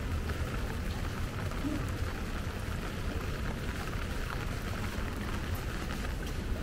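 Steady rain falling on wet pavement, with scattered faint drip ticks over a low rumble.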